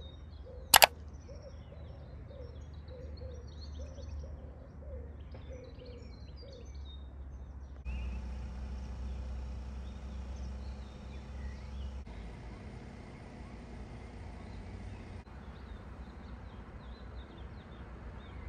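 Small birds chirping and twittering, with a bird's lower call repeated about twice a second for the first seven seconds, over a steady low outdoor rumble. A single sharp click sounds just under a second in.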